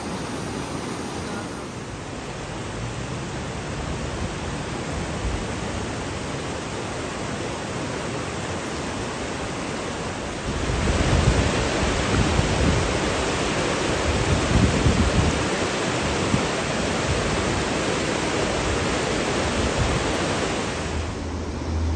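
Steady rushing noise of running water, louder from about halfway through, with irregular low rumbling.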